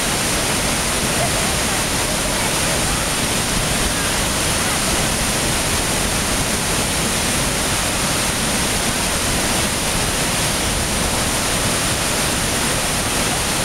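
Waterfall: a steady rush of falling water, even and unbroken throughout.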